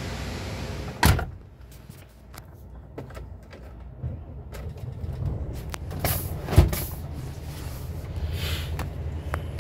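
A truck's diesel engine runs steadily at low speed, heard from inside the cab as the truck creeps forward in a queue. There is a sharp knock about a second in, another clunk around six and a half seconds, and a short hiss near the end.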